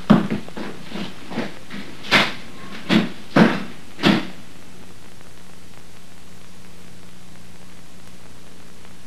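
Handling and movement noises: a run of short knocks and rustles over the first four seconds, then only a steady low hum with hiss.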